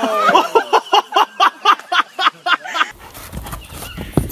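A person laughing hard in quick, even bursts, about four a second, which cut off suddenly about three seconds in. Then come a horse's hooves thudding on soft ground over a low rumble, with a sharper knock near the end.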